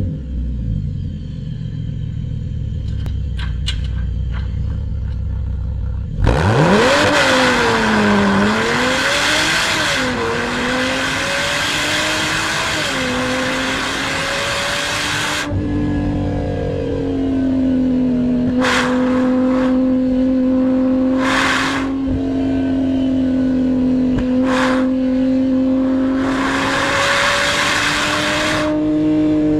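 Porsche 987 Boxster Spyder's flat-six engine heard from inside the cabin while driving: a low rumble for the first six seconds, then pitch rising and falling repeatedly as it revs and shifts, settling into a steadier drone in the second half. A few loud rushing noises come and go along the way.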